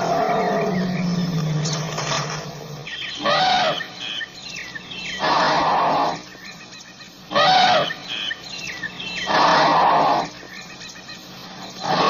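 Asian elephant calling: a long low pitched call over the first two seconds or so, then four short, loud calls about two seconds apart.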